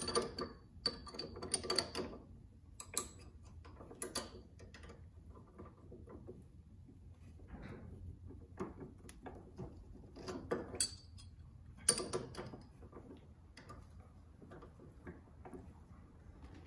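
Hand tools clicking and clinking on a car's sway bar end link as its nut is wrenched on while an Allen key holds the stud from spinning. Light irregular ticking with a few sharper metal clinks.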